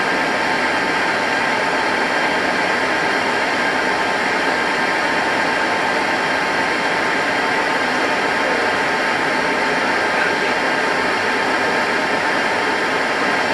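Handley Page Victor's Rolls-Royce Conway jet engines running steadily, heard inside the cockpit as a constant rushing noise with a few steady whining tones.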